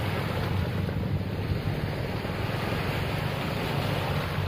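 Small sea waves washing and breaking on a rocky sand shore, with wind buffeting the microphone and a steady low drone underneath.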